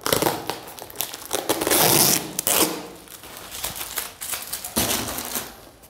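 Packing tape being torn off a small cardboard box and the cardboard rustling as it is opened, in a few noisy rips and scrapes; the longest rip comes about two seconds in.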